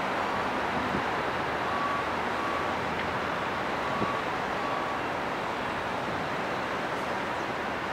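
Steady noise of trucks and a yard tractor running on the quay as a ro-ro ferry unloads, with a vehicle's warning beeper giving short high beeps every second or less until about five seconds in.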